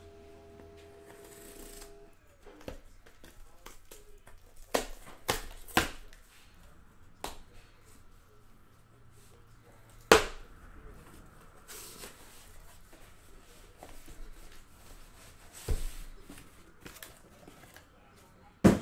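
A cardboard trading-card master case being opened and handled by hand: rustling and scraping of cardboard with scattered sharp knocks, the loudest about ten seconds in and another near the end as an inner box is lifted out.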